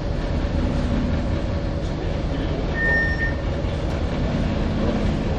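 Tugboat engines running, a steady low rumble, with a short high tone about three seconds in.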